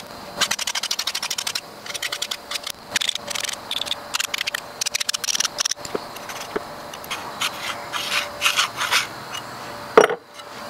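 Steel being worked by hand: short bursts of fast rasping, scraping strokes on metal, like a file or wire brush on the fabricated latch piece. A sharp knock comes near the end.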